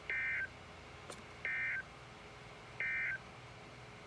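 Emergency Alert System end-of-message tones: three short bursts of warbling SAME data, each about a third of a second long and about 1.3 seconds apart. They mark the end of the broadcast severe thunderstorm warning.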